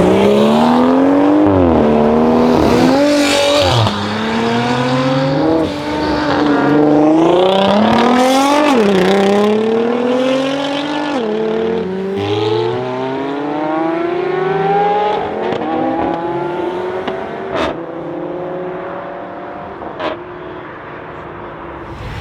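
Mercedes GLE43 AMG's twin-turbo V6 through an Armytrix exhaust accelerating hard through the gears: the engine note climbs, drops sharply at each of about four upshifts, then climbs again, fading as the car pulls away. Two sharp exhaust pops near the end.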